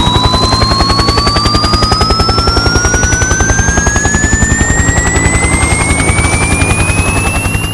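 Speaker run-in test audio: a recorded helicopter's rotor beating in a fast, even rhythm, mixed with a sine sweep tone that glides steadily upward in pitch. It fades out near the end.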